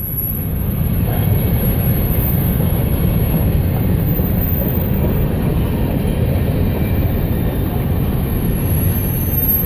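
Covered hopper cars of a long freight train rolling past close by: a steady, loud rumble of steel wheels on the rails.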